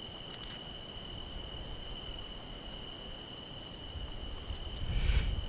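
A cricket's steady, unbroken high trill, with a brief louder noise near the end.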